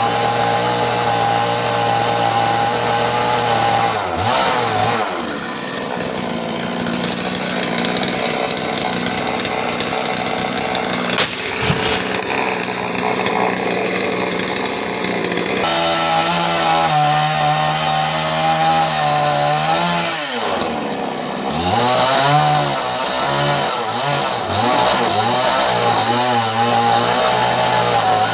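Chainsaw engine running throughout at changing speeds. It holds steady at first, drops to a lower, quieter run about four seconds in, and comes back up to a higher steady pitch about halfway through. It dips briefly around twenty seconds in, then wavers up and down near the end.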